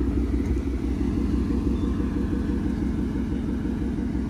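Ford Mustang GT's 5.0-litre Coyote V8 idling steadily with a low, even rumble.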